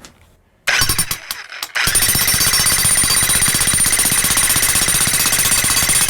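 Harbor Freight Hercules electric jackhammer hammering a homemade welded tamper foot into dirt: a short burst about a second in, then steady fast hammering from about two seconds in.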